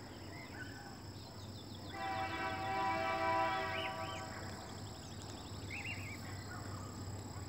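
BNSF diesel locomotive's horn sounding one chord blast of about two seconds, starting about two seconds in and fading out, with a tone much like a steam locomotive's whistle.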